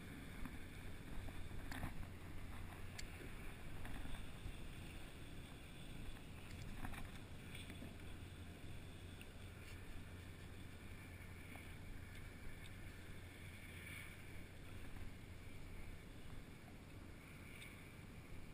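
Faint water sounds around a plastic fishing kayak on open water, over a steady low rumble, with a few small clicks and knocks from handling gear.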